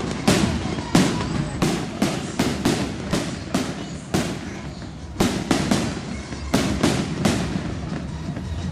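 Fireworks going off in a rapid, irregular string of sharp bangs, about two a second, each trailing off in echo over a low rumble, with a short lull about halfway through.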